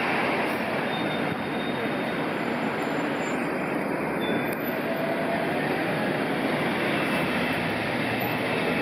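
Steady, unbroken rushing noise with no distinct events.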